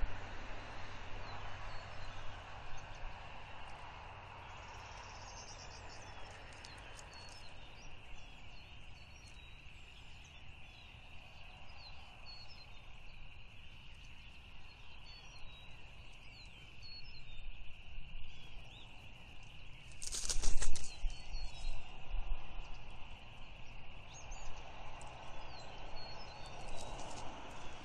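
Outdoor woodland ambience: small birds chirping here and there over a steady high hiss, with a low hum fading out in the first several seconds. About twenty seconds in, a brief loud rushing thump stands out as the loudest sound.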